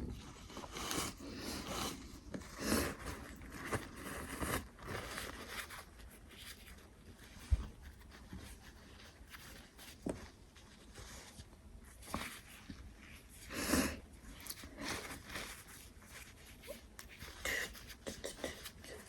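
Soft, short sniffs and breaths through the nose, every second or few, as a twisted paper string (kozori) tickles the nostril to bring on a sneeze; no sneeze comes.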